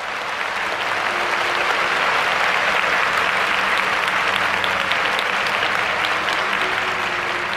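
Audience applauding at the end of a song, building over the first couple of seconds and then holding steady.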